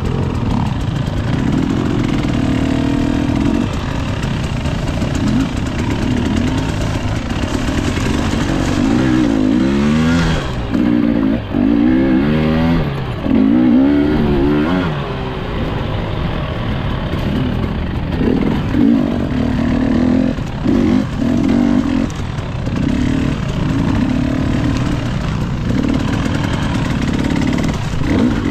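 Dirt bike engine running, its revs rising and falling again and again as the throttle is opened and shut, with the quickest run of rev swings around the middle.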